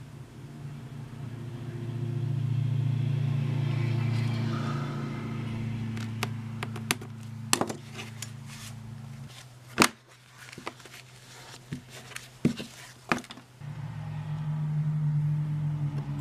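A steady low hum that drops out for a few seconds past the middle and then comes back. Over it, a string of sharp clicks and taps as hand tools are picked up and handled on a leather workbench.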